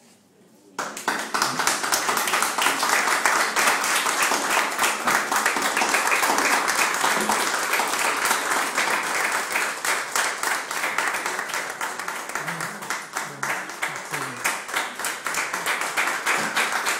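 Audience applauding, starting suddenly about a second in and going on steadily.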